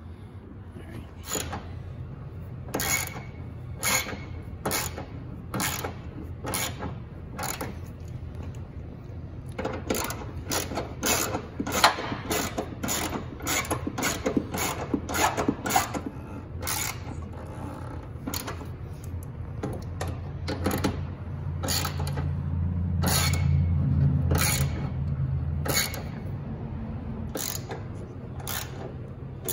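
Irregular clicks, taps and scrapes of hand work as a replacement headlight assembly is fitted and its bolts are run in with a ratchet. The clicks come fastest about a third of the way in. A low hum swells for a few seconds past the middle.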